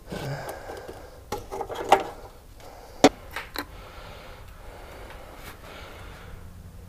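Scattered light clicks and knocks from hands working at the radiator filler and handling a plastic antifreeze jug. The sharpest click comes about three seconds in.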